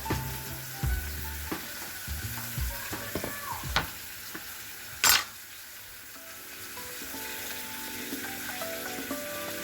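Food sizzling in a hot frying pan, with scattered sharp clicks of a utensil against the pan in the first few seconds. About five seconds in there is one brief loud hiss.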